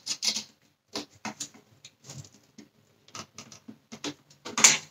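Irregular small clicks and scratches of a screwdriver tip working against a tiny screw in the plastic cyclone unit of a Dyson Cinetic Big Ball vacuum cleaner. The screwdriver only roughly fits the small Torx screw head. There is one louder rustling burst near the end.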